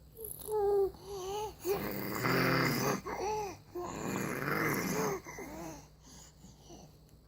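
A baby vocalizing: a few short wavering pitched sounds, then longer rough, noisy growl-like noises in the manner of a zombie impression, dying away near the end.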